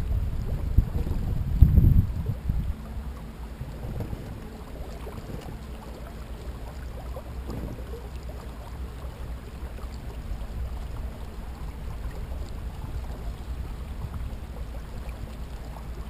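Water washing along the hull of a motorized kayak under way, with a low rumble of wind on the microphone. It is louder and gustier for the first couple of seconds, peaking about two seconds in, then settles into a steady wash.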